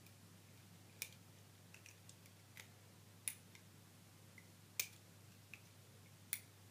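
Sharp little clicks and snaps, about five loud ones at irregular intervals and a few fainter ones, as a hook tool lifts rubber loom bands over the pegs of a small plastic loom. A faint steady low hum sits underneath.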